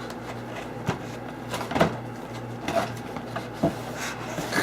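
Cardboard box and packaging being handled: scattered knocks, scrapes and rustles, over a steady low hum.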